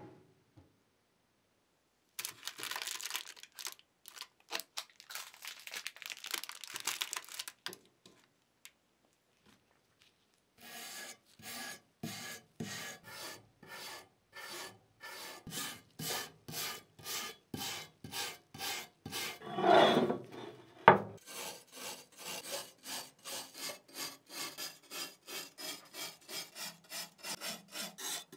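Brass wire brush scrubbing rust off a vintage Wagner cast iron corn stick pan: a spell of dense scratching, a short pause, then steady back-and-forth strokes at about two a second. A louder scrape and a single sharp knock come about twenty seconds in.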